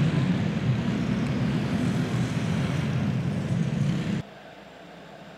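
Several clone-engine dirt karts, small single-cylinder four-strokes, running around the track after the checkered flag, blended into a steady drone inside a hall. About four seconds in the sound drops away suddenly, leaving only low room noise.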